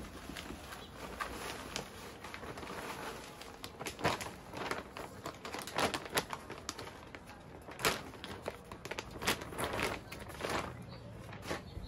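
Plastic potting-mix bag crinkling and rustling as it is tipped and shaken to pour soil into a pot, in irregular crackles with the sharpest about four and eight seconds in.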